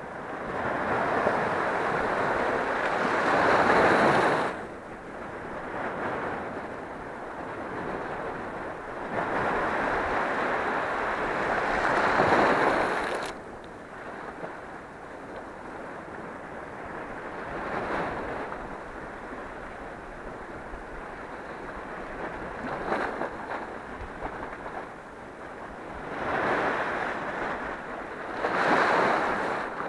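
Small sea waves breaking and washing over a rocky shoreline, the surf swelling and fading. There are three louder surges, near the start, about ten seconds in and near the end, with smaller washes between.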